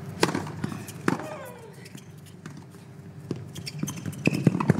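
Tennis ball struck by a racket on a serve about a quarter-second in, then the return and rally: a few sharp racket hits and ball bounces on the hard court, coming quickly near the end.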